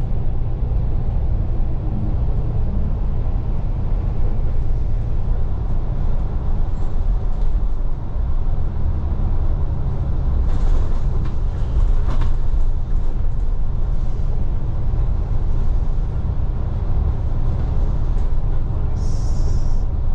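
Bus in motion heard from inside the cabin: a steady low rumble of engine and road noise, with a few light clicks about halfway through.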